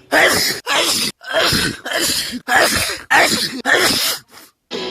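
Sneezes in rapid succession, about seven loud ones roughly every half second, then a short faint one near the end.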